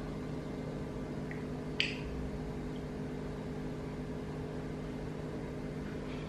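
A steady electrical hum made of several steady low tones, like a running appliance, with one brief sharp sound a little under two seconds in.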